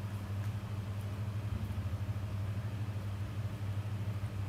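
Steady low hum, like an appliance or mains hum, with a few faint light ticks over it.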